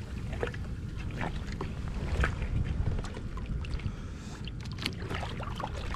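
A gaffed yellowtail thrashing at the side of a plastic kayak: scattered short splashes and knocks over a low, steady rumble.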